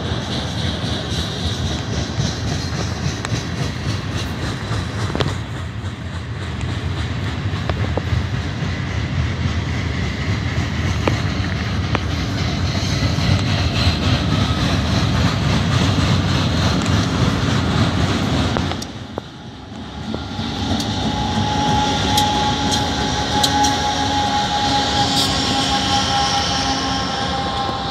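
Freight train rolling past: tank cars and autoracks clattering on the rails over a steady low rumble. After a short drop about two-thirds of the way through, a steady high whine of several tones rises over the rumble as a BNSF locomotive goes by.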